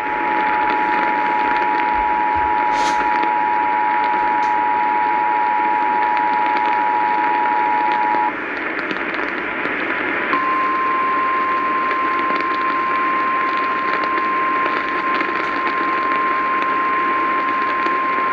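Emergency Alert System tones announcing a severe thunderstorm warning, received over the radio through steady static hiss. The two-tone EAS attention signal holds for about eight seconds and cuts off. After a couple of seconds of static, the single steady NOAA Weather Radio warning alarm tone takes over.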